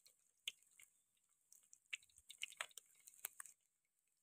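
Faint, scattered crackling and popping of onion frying in hot oil in a clay pot, a little busier in the second half.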